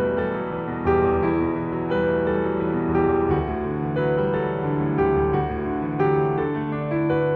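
Background piano music: soft, slow sustained chords and notes changing about once a second.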